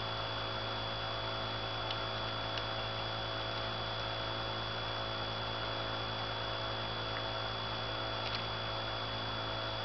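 A steady low hum with a thin high whine above it, unchanging throughout, with a few faint clicks.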